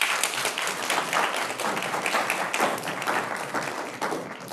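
Audience applauding: many hands clapping in a dense, steady patter that tails off near the end.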